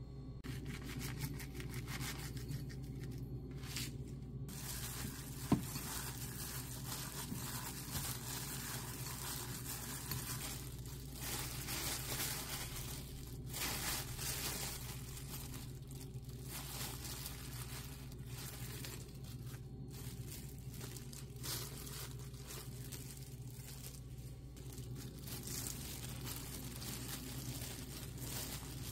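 Thin plastic wrap crinkling and rustling as hands squeeze and shape a rice ball inside it, with one sharp tap about five seconds in.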